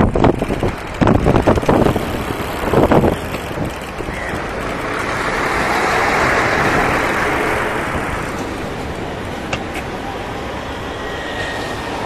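Road traffic heard through a cycling dashcam's microphone. Wind buffets the mic in gusts for the first few seconds, then a vehicle's tyre and engine hiss swells and fades in the middle as it passes.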